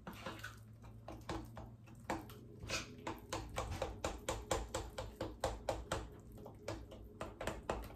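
A utensil stirring thick red velvet cake batter in a glass mixing bowl, clicking and scraping against the glass about four times a second, as an egg is beaten into the batter.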